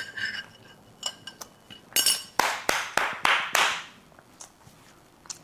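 Kitchenware clinking: a metal utensil rings twice against a dish, then makes a run of about six quick scraping strokes.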